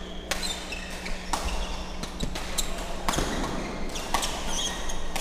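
Badminton rally: sharp racket strikes on the shuttlecock, roughly once a second, mixed with the squeak of shoes on the court mat.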